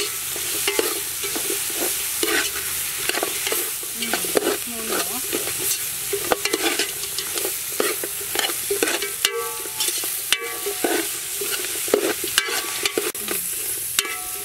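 Duck pieces, lemongrass and chili paste stir-fried in a large metal pan: a metal utensil scrapes and knocks against the pan again and again over a steady sizzle of hot oil.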